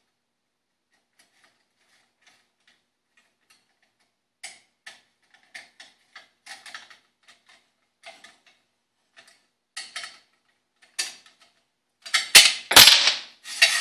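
Silence at first, then scattered light metal clicks and rattles as a charging handle is fitted onto a Bushmaster M17S rifle, with a run of louder sharp clacks near the end.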